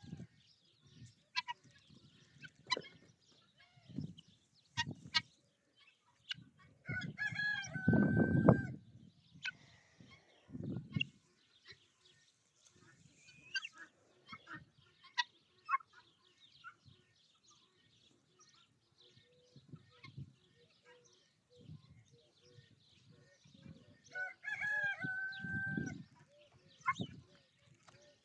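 Rooster crowing twice, about seven and about twenty-four seconds in, each crow ending on a long held note. Short clucks and chirps from the flock are scattered between the crows.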